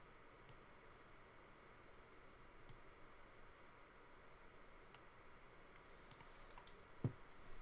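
Near silence with faint computer mouse clicks about every two seconds, a few quicker ones near the end, and a soft low thump just before it ends.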